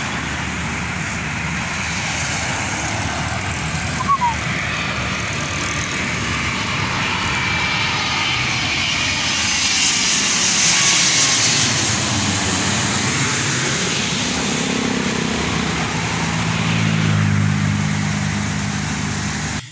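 Twin-engine jet airliner passing low overhead with its landing gear down: steady jet engine noise that builds to its loudest about ten seconds in, over road traffic. A short high chirp about four seconds in, and a road vehicle's engine humming near the end.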